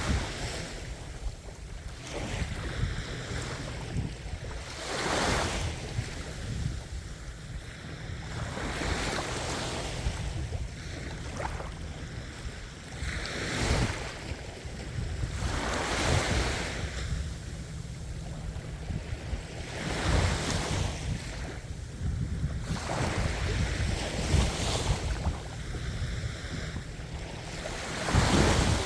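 Ocean surf: waves breaking one after another, each a rushing swell about every four seconds, over a steady low rumble.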